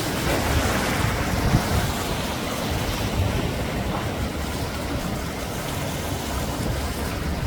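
Sea waves breaking and washing ashore: a continuous rushing surf with a deep rumble underneath, swelling a little louder about a second in.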